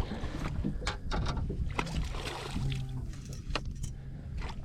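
Scattered light knocks and clatter of a fish and gear being handled aboard a small fishing boat, over a low steady rumble.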